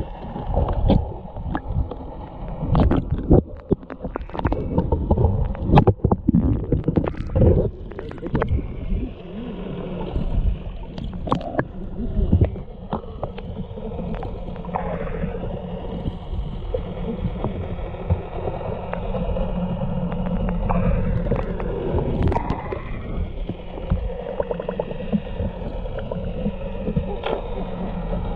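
Muffled underwater water noise heard through a submerged camera: splashing with many sharp knocks and clicks over the first several seconds, then steadier gurgling over a constant low hum.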